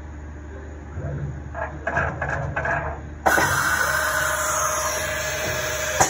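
Automatic tool change on a retrofitted CNC milling machine. For a couple of seconds the mechanism clunks and rattles. Then compressed air hisses loudly and steadily for about three seconds from the pneumatic tool-change system, ending in a sharp clack.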